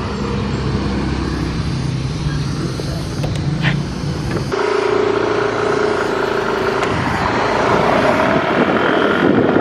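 Motor scooter engine running steadily at idle; about four and a half seconds in the sound changes suddenly to the scooter under way, its engine with rushing wind noise that grows toward the end.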